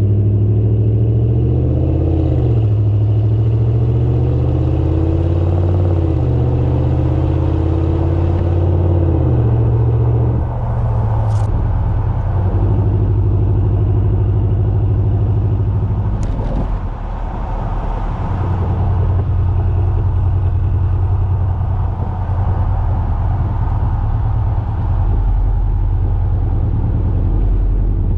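Exhaust of a 2019 Ram 1500's 5.7 L Hemi V8 through a Flowmaster Super 10 muffler with the first resonator removed, heard at the tailpipe. It is a deep rumble rising and falling through the shifts under light acceleration. After about ten seconds it settles into a steadier low drone with MDS cylinder deactivation active, running on four cylinders.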